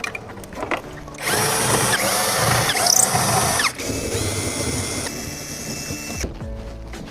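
A handheld power tool runs from about a second in. It is loud for a couple of seconds, then quieter and steadier for about two more, and stops near the end.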